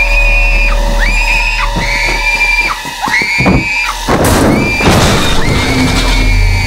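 A young girl screaming again and again in short, high-pitched shrieks over a steady low rumble, with a rushing whoosh a little after four seconds in.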